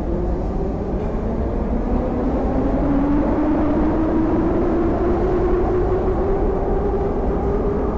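Metro train of the 81-717 type pulling out of a station: a steady rumble with a motor whine that climbs in pitch from about three seconds in as the train gathers speed.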